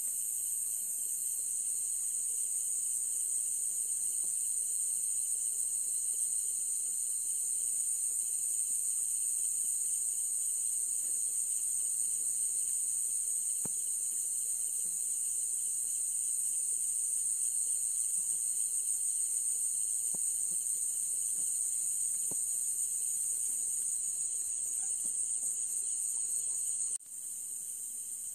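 Steady, high-pitched chorus of crickets chirring. A faster pulsing insect call joins higher up near the end, and the whole drops slightly in level just before the end.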